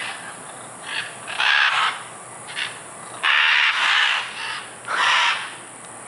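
Scarlet macaws calling: about half a dozen loud, harsh squawks, some short and some drawn out to about a second.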